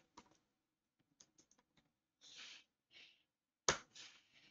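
Computer keyboard typing: a few quick, light keystrokes, then two soft breaths, and one much louder click near the end as the entry is confirmed.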